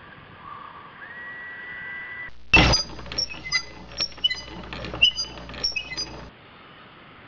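A faint steady hiss with a thin whine, then a sharp crash followed by about four seconds of clinking and tinkling, like shattering glass. The crash and clinks are an edited-in sound effect that stops abruptly.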